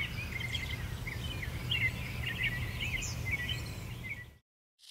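Small birds chirping repeatedly over a steady low rumble of outdoor noise, which cuts off abruptly a little over four seconds in.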